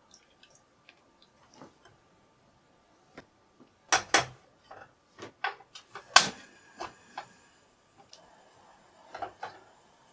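A stainless saucepan being set onto the metal grate of a portable gas stove: a series of clicks and metal knocks, with the loudest sharp knock about six seconds in.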